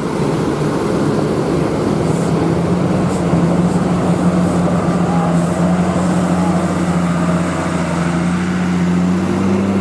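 A tour bus's diesel engine running as the bus rolls slowly past at close range: a steady low drone with no horn.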